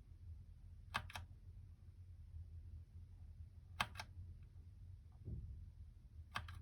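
Keychron K2 mechanical keyboard key pressed three times, a couple of seconds apart, each press a quick double click as the key goes down and springs back up, over a steady low hum.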